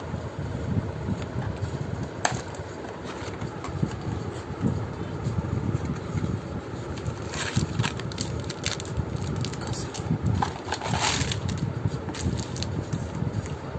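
A cardboard box and its paper tray being handled and opened, with scraping and crinkling, then foil-wrapped cookies rustling as they are tipped out. A steady low rumble lies underneath throughout.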